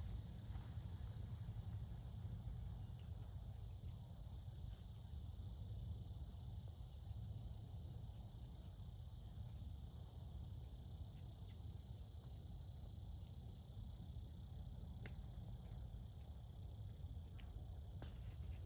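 Faint outdoor ambience: insects buzzing steadily in a constant high drone over a low steady rumble, with one sharp golf club strike on the ball about fifteen seconds in.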